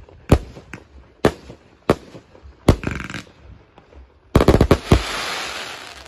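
Aerial fireworks exploding: single sharp bangs about once a second, then a rapid volley of reports about four seconds in, followed by a loud hissing crackle that slowly fades.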